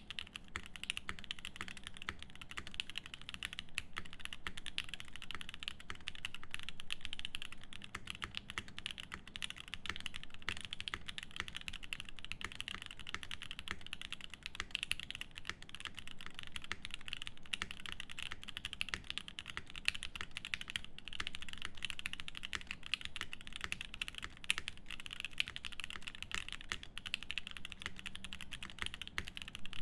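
Fast, continuous typing on a Swift65 mechanical keyboard with lubed Alpaca linear switches, a polycarbonate plate and GMK keycaps: a dense, unbroken stream of keystrokes that starts abruptly.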